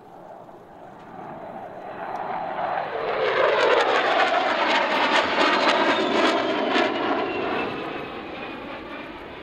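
Two US Navy F/A-18 Super Hornets' jet engines passing overhead, building to a loud roar in the middle and then fading, with a sweeping whoosh as they go by. Near the loudest point the roar crackles, and a whine slides down in pitch as they move away.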